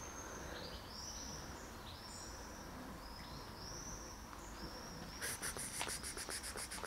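Outdoor ambience of high, thin chirps repeating about once or twice a second. About five seconds in they are joined by a rapid, even, high-pitched ticking rattle.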